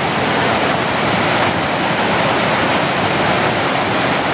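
Muddy floodwater of a swollen canal rushing and churning, a loud, steady rush of water with no let-up.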